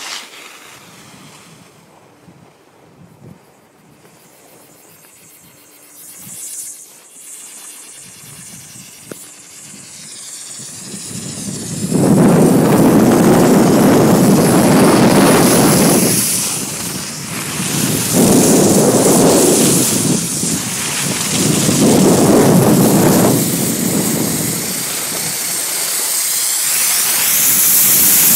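Skis sliding over packed snow, then from about twelve seconds in loud wind buffeting the microphone in repeated surges as the skier picks up speed downhill.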